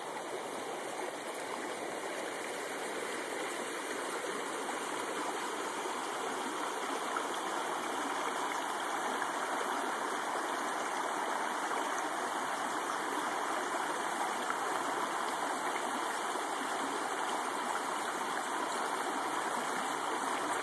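Rocky mountain creek rushing over stones in shallow riffles: a steady wash of running water that grows slightly louder over the first few seconds.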